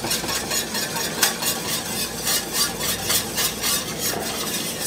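Wire whisk beating thick gravy in a stainless steel sauté pan, the wires scraping and clicking against the pan in quick, regular strokes as sour cream is whisked in.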